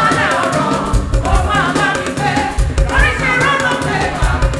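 Church praise music: voices singing over drums and percussion with a steady beat.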